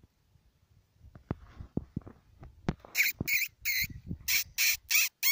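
A man's voice imitating a prey animal's distress with a rapid run of short, high squawks, about three a second, starting about three seconds in: a mouth-made predator call to bring in a coyote. Faint knocks come before it.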